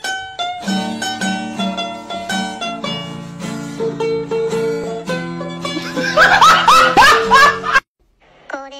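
Upbeat background music on plucked strings, a quick picked melody over a repeating chord pattern, with a few rising swoops near the end; it cuts off abruptly about eight seconds in, and a different tune starts faintly just after.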